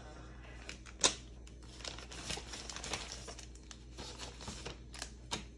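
Small clear plastic accessory bag crinkling and rustling as it is handled, with scattered small clicks and a sharper click about a second in.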